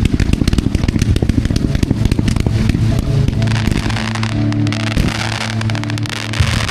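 Fireworks going off in a dense rapid string of crackling pops that thins out after about three seconds, with a steady low hum under it from then on.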